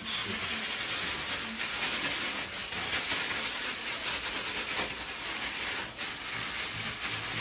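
Kitchen tap running steadily into a stainless steel sink while raw chicken is handled over it.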